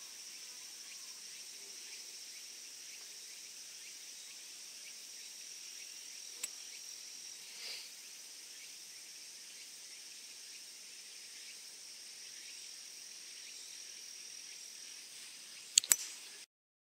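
Steady high chirring of insects, with a single faint tick about six seconds in. Near the end a golf club strikes a teed ball with a sharp doubled click, and the sound then cuts off.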